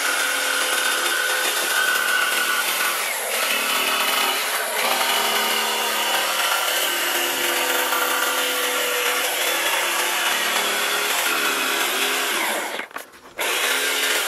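Corded Bosch jigsaw with a narrow blade sawing through a wooden board along a curved line, its motor whining steadily under the cut. It stops for about half a second near the end, then starts cutting again.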